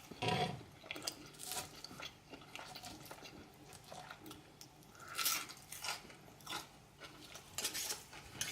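A person chewing and eating food close to the microphone, with irregular short mouth sounds, a little louder about five seconds in and near the end.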